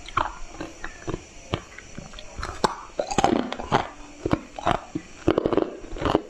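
Pieces of coloured ice being bitten and chewed close to a clip-on microphone: irregular sharp crunches and cracks, coming thicker and louder in the second half.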